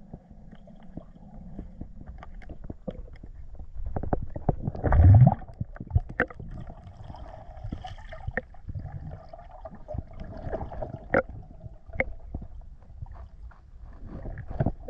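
Underwater sound heard through a camera housing: a muffled wash of moving water with scattered clicks and knocks. About five seconds in there is a loud gurgling surge that rises in pitch.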